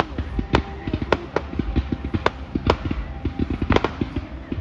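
Fireworks display going off: a rapid, irregular crackle of small bangs with about half a dozen sharper reports standing out.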